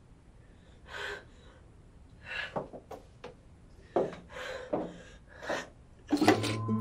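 A young woman's uneven, gasping breaths, about half a dozen spread over several seconds, the breathing of someone upset and close to tears. Music comes in near the end.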